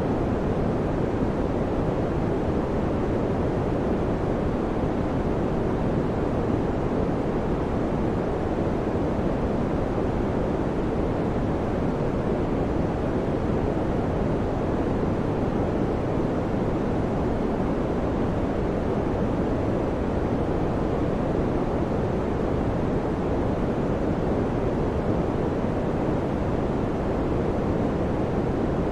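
Electric fan running steadily: an unbroken, low whooshing noise with no hum, clicks or changes.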